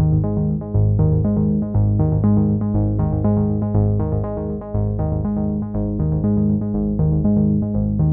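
Background music: a synthesizer and keyboard tune over a steady, repeating bass pattern.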